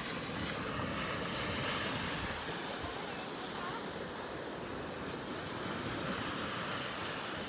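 Small ocean waves breaking and washing up onto a sandy beach, a steady rush of surf that swells slightly about two seconds in, with wind on the microphone.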